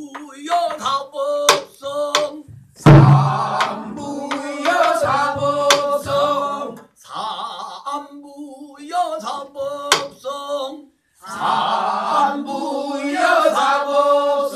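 Traditional Korean singing, with a drum struck by a stick to mark the beat: a deep drum thump about three seconds in and a few sharp stick clicks between phrases.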